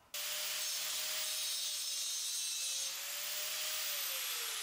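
Handheld angle grinder grinding the inside edge of a saddle-cut steel pipe end, easing the cut so the joint fits, with a steady whine. Near the end it is switched off and the whine falls as the disc spins down.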